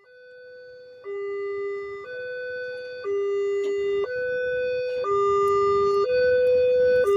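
Automatic railway level-crossing warning siren sounding two alternating tones, high then low, switching about once a second. It fades in and grows louder over the first few seconds.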